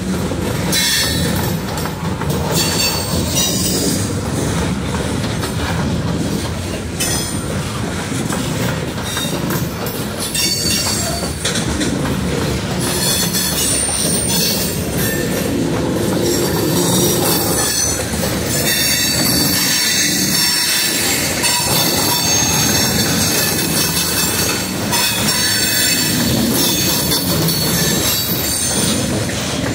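Freight train of covered hopper cars rolling past close by: a steady rumble of steel wheels on rail, with thin high wheel squeal and occasional clicks as the trucks pass over the rail joints.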